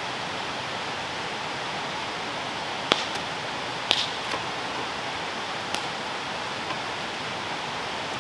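A few sharp knocks and clicks from a kitchen knife on a plastic cutting board and from an aluminium foil packet as chopped bell pepper is moved into the packet, about three, four and six seconds in, over a steady rushing background noise.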